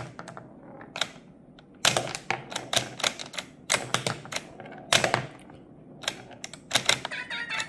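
ROKR wooden 3D Pinball machine in play: an irregular run of sharp wooden clacks as the ball strikes the solenoid-fired pop bumpers and the flippers are worked. Near the end the machine's electronics play a short run of stepped tones.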